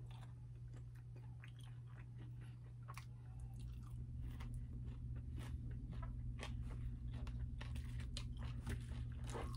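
Close-up chewing and crunching of fried chicken, with many small crisp crunches and mouth clicks, a little busier from about halfway through. A steady low hum runs underneath.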